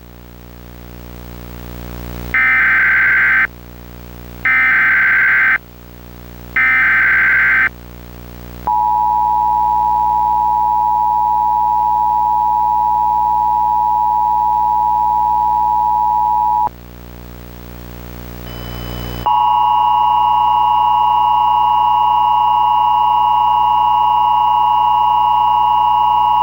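Emergency Alert System broadcast tones. Three short bursts of warbling digital header data come about a second apart, then the two-tone EAS attention signal is held steady for about eight seconds. After a brief pause, a second steady attention tone made of several pitches sounds, with a low buzz swelling in the gaps between tones.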